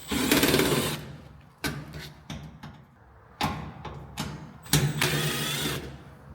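Power drill-driver backing screws out of a washing machine's back panel: two runs of about a second each with a fast whirring rattle, and shorter blips between them.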